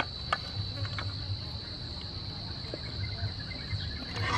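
Insects chirring outdoors, one steady high-pitched buzz, with a few faint clicks.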